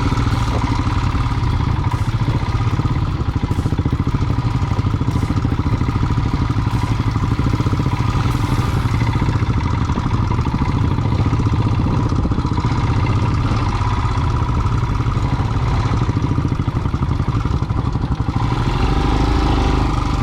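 Royal Enfield single-cylinder motorcycle engine running steadily with an even pulsing beat. It grows a little louder near the end.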